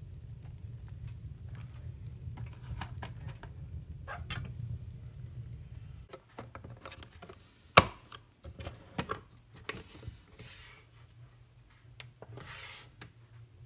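A wood fire burns in a fireplace with a steady low rumble and small crackles. After about six seconds come clicks and knocks as a single-serve pod coffee maker is loaded and its buttons are pressed, with one sharp snap about eight seconds in and a couple of short hissing rushes near the end.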